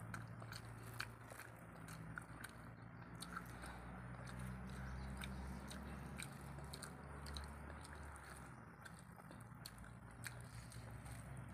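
Faint mukbang eating sounds: fingers mixing rice and curry gravy on plates, with soft chewing and scattered small clicks, over a low steady hum.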